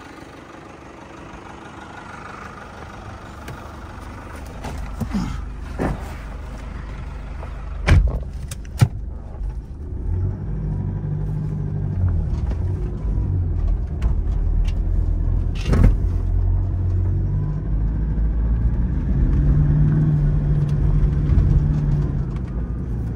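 Toyota Fortuner SUV's engine pulling the car through deep loose soil, with a low drone that grows louder from about ten seconds in. Over it come a few sharp knocks, two close together about eight seconds in and one more near sixteen seconds.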